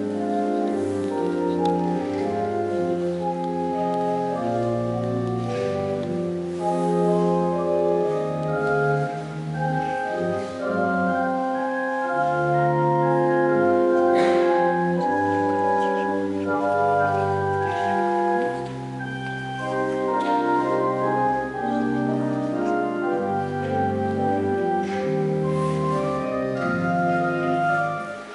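Organ playing slow, sustained chords that change every second or two over held low bass notes.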